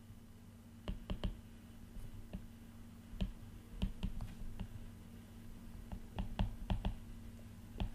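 Stylus tip clicking and tapping on a tablet's glass screen during handwriting, in irregular clusters of sharp ticks, over a faint steady low hum.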